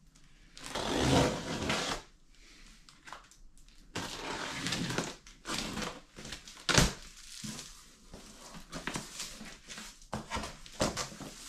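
Unboxing noise: a utility knife slicing through plastic wrap and packing tape on a cardboard box, with plastic film crinkling and cardboard scraping in rough bursts. One sharp click stands out about seven seconds in.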